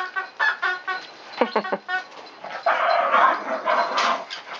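Small dogs yipping and barking in play over their new toys, with a quick string of short yips in the first two seconds and a rougher, noisier stretch in the second half.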